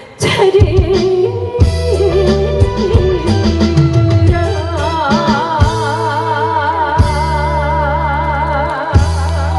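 Live trot song over an amplified band backing track, with a steady bass line, guitar and a woman singing; in the second half a long note is held with wide vibrato.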